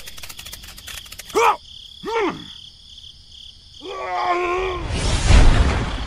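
Cartoon-style character vocalizations: two short squeaky calls that rise and fall, then a longer wordless babble. Near the end comes a loud rushing noise with a deep rumble.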